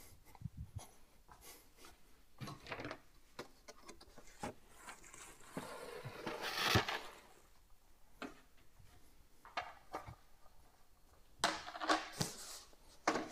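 Scattered light knocks and rustles of hands handling things on a tabletop, with a brief swell of rushing noise about six to seven seconds in. Near the end come a few louder knocks as a cardboard box is moved and set on a round base.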